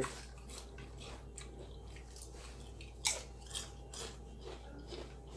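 Someone chewing crunchy chips close to the microphone: a run of small crackles and crunches, with one louder crunch about three seconds in.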